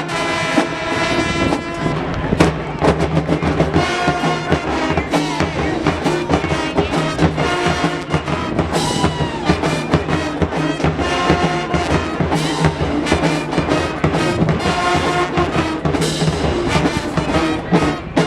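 High school marching band playing, with brass horns over drums.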